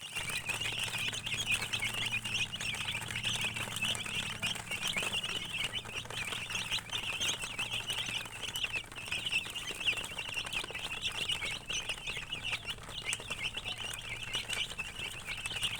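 Many domestic chicken chicks peeping at once, a steady stream of high, short, overlapping chirps with no pause.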